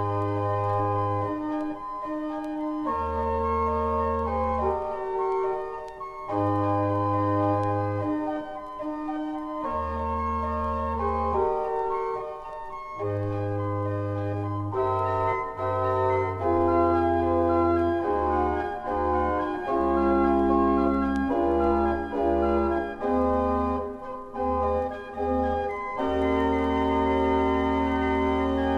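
A 1902 Wilhelm Sauer pipe organ playing sustained chords over a deep pedal bass line, the chords changing every couple of seconds. The pedal notes come shorter and quicker in the second half.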